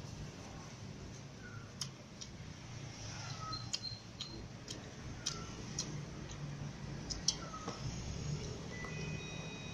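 A cat chewing pieces of spiced chicken, with irregular sharp clicks and smacks of its teeth and tongue. Under it runs a low steady hum, and a short falling chirp comes every two seconds or so.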